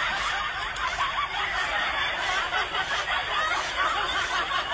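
Continuous high-pitched snickering laughter.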